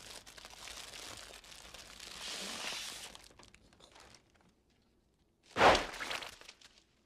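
Paper airsickness bag crinkling as it is handled for a few seconds, then a single loud bang about five and a half seconds in as the bag is burst between the hands.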